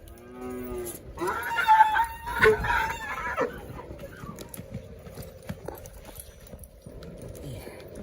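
Cattle bawling: a short call at the start, then a louder, longer call from about a second in to about three and a half seconds.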